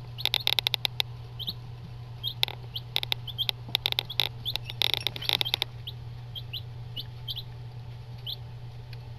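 Eight-day-old chicks peeping in short, scattered high chirps, with quick runs of clicks and ticks as they scratch and kick at fresh feed, mostly in the first second and from about two and a half to five and a half seconds in. A steady low hum runs underneath.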